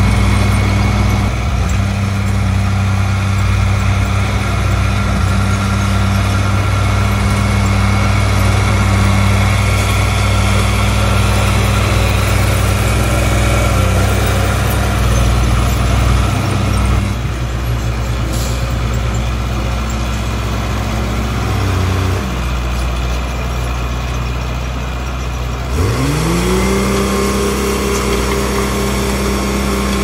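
Heavy diesel engine of earthmoving machinery running steadily; its sound drops about 17 seconds in, and near the end an engine revs up sharply and holds the higher speed.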